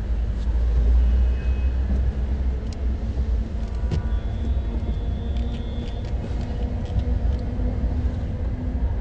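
Car engine and road rumble heard from inside the cabin of a moving car. It is a steady low rumble, loudest about a second in.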